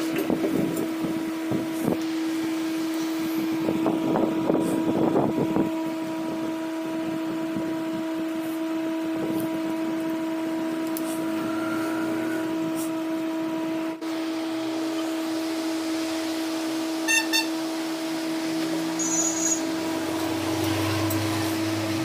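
A steady, even-pitched hum throughout. Over it, the metal parts of a motorcycle engine clink and rattle as the piston and cylinder barrel are handled in the first several seconds. A few short beeps sound later on.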